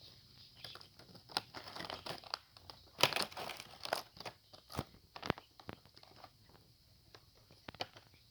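Packaging being handled and torn open: crinkling and tearing with irregular sharp clicks, busiest about three to four seconds in.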